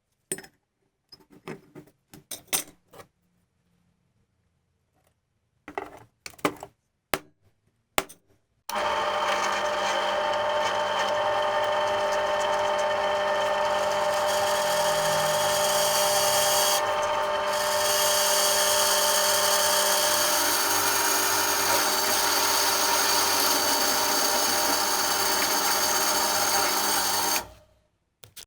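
Scattered clicks and knocks, then an electric power tool starts about nine seconds in and runs steadily at one speed until it cuts off abruptly near the end.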